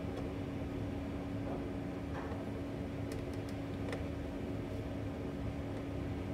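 Steady mechanical hum with a single steady tone, like a running fan or appliance, under a few faint light clicks from hand work with a screwdriver on a cabinet door hinge, about two, three and four seconds in.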